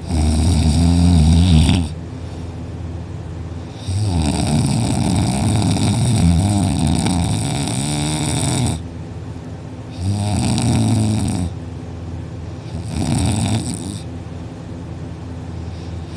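A person snoring loudly in deep sleep: four rough snores, the second one much longer than the others, with quieter gaps between them.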